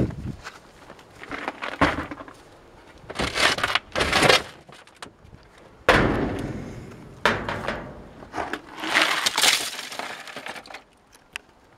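Broken pieces of smashed computer parts, plastic casings, cables and shards, clattering and crunching in several separate bursts as they land in a plastic wheelie bin.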